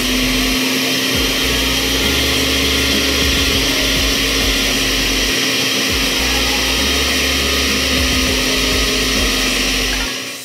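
Oster countertop blender with all-metal drive running steadily at speed, a constant motor hum under a dense whirring as it churns a thick purée. It stops near the end.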